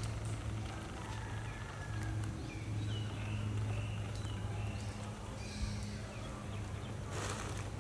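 Outdoor ambience with a steady low hum. A string of faint, short, wavering chirps comes a few seconds in, and a brief rustle near the end.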